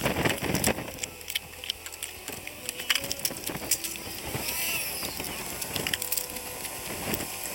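Emergency food packets and cardboard boxes being handled and set into a wooden-shelved storage cabinet: irregular knocks, taps and scrapes, with rustling of packaging.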